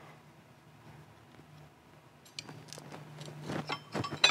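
Faint, scattered metal clicks and taps as small bolts are loosened by hand and the thin steel belt guide and timing wheel are worked off a Miata crankshaft pulley. It is almost quiet at first, the clicks come more often in the second half, and a sharper metallic clink rings out at the very end.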